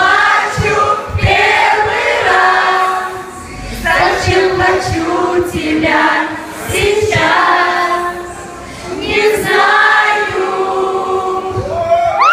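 Concert audience singing along in chorus with a female singer, in loud sung phrases with brief pauses between them.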